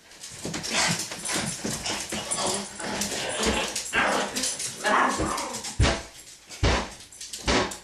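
A small dog whining and yapping, over scuffling, with three heavy thumps in the last couple of seconds.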